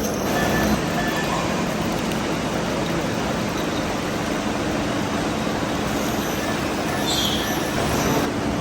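Heavy machine-shop machinery running steadily: a dense, even mechanical noise with a faint hum, and a short high squeak about seven seconds in.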